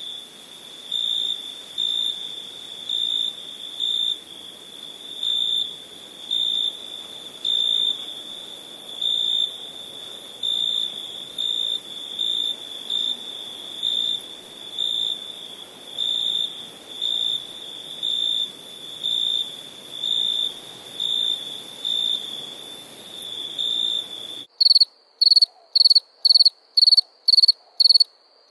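Crickets chirping in a steady pulsing rhythm, about one and a half chirps a second, over a soft background hiss. Near the end the sound changes abruptly to a louder, faster insect chirping, about two and a half a second, with the hiss gone.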